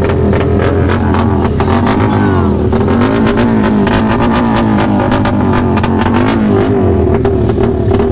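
Motorcycle engine revved over and over through a loud exhaust, its pitch rising and falling with each blip of the throttle, with sharp pops and cracks throughout.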